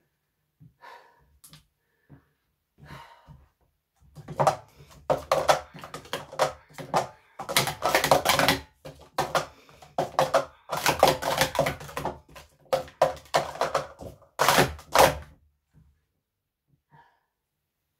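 Speed Stacks plastic sport-stacking cups clattering in a fast run of clicks for about eleven seconds as they are stacked up into pyramids and brought back down on the mat, starting about four seconds in and stopping suddenly.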